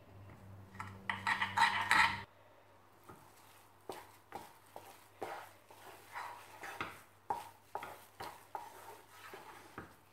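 A wire whisk clattering against a nonstick pan as sugar is mixed into cooked semolina for kesari, loudest in the first two seconds. After that comes a wooden spatula stirring the thick orange mixture, scraping and knocking against the pan about once or twice a second.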